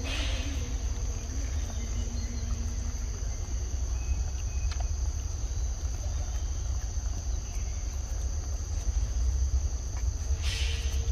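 Steady, high-pitched drone of insects in the forest, over a low rumble.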